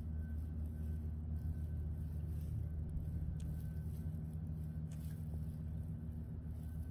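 Steady low rumble of city background noise, like traffic, with a constant low hum in it.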